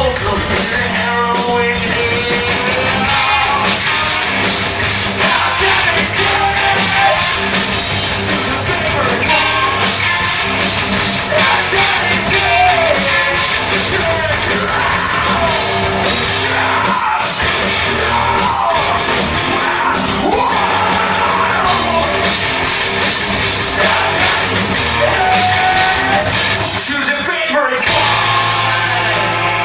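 Live rock band playing loudly, with a singer singing and yelling over the band. The music breaks off briefly near the end, then comes back in.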